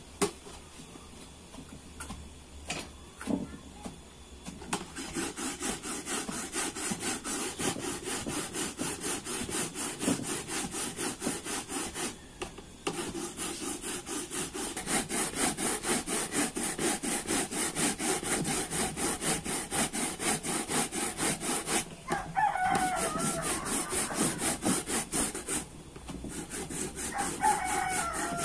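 Coconut flesh grated by hand on a flat metal grater: a steady rasping scrape, stroke after stroke, starting about five seconds in, with short pauses. A rooster crows twice near the end.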